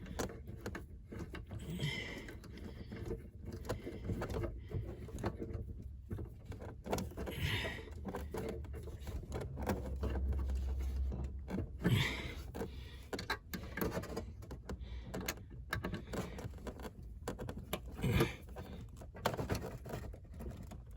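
Hand work on small hardware: scattered light clicks, taps and rustling as panel screws are threaded in by hand and turned with an Allen key, with a sharper knock about twelve seconds in.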